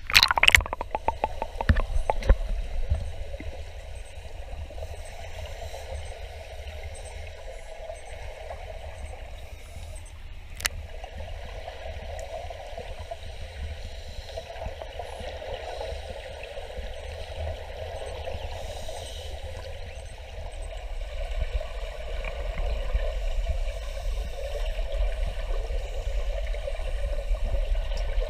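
Muffled underwater sound through an action-camera housing: splashing and knocking as the camera goes under, then steady bubbling and gurgling of scuba divers' exhaled air from their regulators, over a low rumble.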